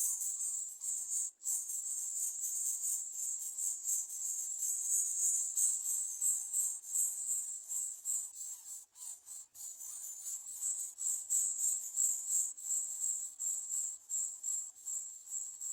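Steady high-pitched insect chorus, a continuous pulsing trill.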